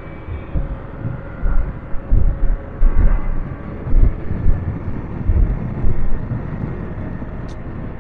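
Motorcycle riding along the road: steady engine and road noise, with irregular low wind gusts buffeting the microphone.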